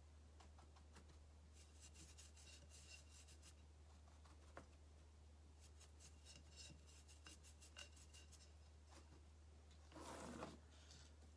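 Near silence: faint scratching and ticking of a small brush dabbing black powder into the crevices of a paper-clay moulding on a pot, over a steady low hum, with a short soft voice-like sound about ten seconds in.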